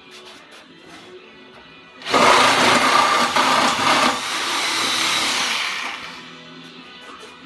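Reciprocating saw (sawzall) running and cutting into a wooden pallet between its boards. It starts about two seconds in, is loudest at first, runs a little steadier after about four seconds, and stops about six seconds in.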